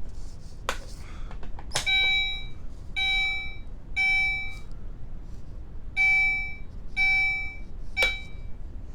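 Battery-powered fire alarm sounder beeping in the temporal-three evacuation pattern: three high-pitched beeps about a second apart, a pause, then three more. Sharp clicks come before the first beep, and the last beep is cut short by another click.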